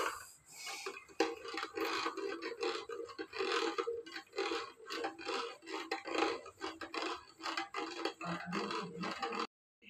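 A spoon stirring lemonade in a plastic cup, scraping round the bottom and sides in a quick, even rhythm to dissolve sugar and salt. It stops abruptly near the end.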